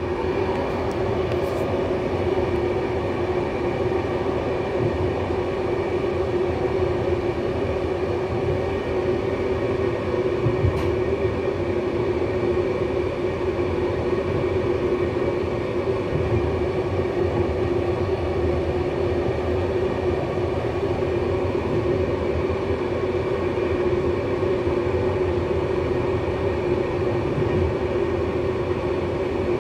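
Passenger train carriage running at speed, heard from inside the last car: a steady rumble of wheels on rail with a constant hum over it.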